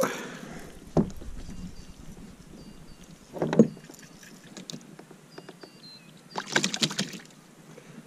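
Knocks and clatter on a plastic fishing kayak's deck as a small Australian bass is landed and unhooked: one sharp knock about a second in, then louder bursts of clattering around three and a half and six and a half seconds in.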